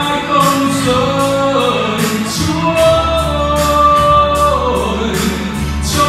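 A man singing a slow Vietnamese song into a handheld microphone, amplified by a PA, over a recorded backing track. He holds long notes against a steady beat in the accompaniment.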